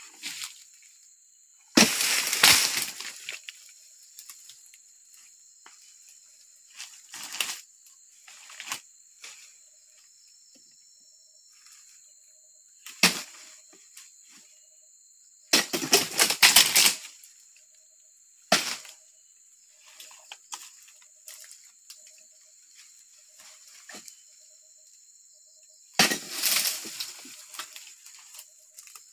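A pole-mounted oil palm harvesting chisel (dodos) jabbed into the palm's frond bases, with dry fronds cracking, rustling and falling in about seven sudden bursts separated by quiet gaps.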